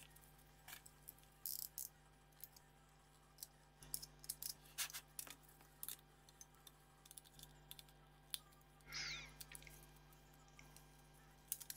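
Faint, scattered clicks and light taps of hard plastic model parts being handled and set down on a silicone work mat, with a brief rubbing scrape about nine seconds in.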